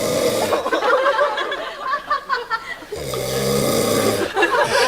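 A man snoring heavily in his sleep: two long, rasping snores, one at the start and one about three seconds in. Between them there is low talk and a little laughter.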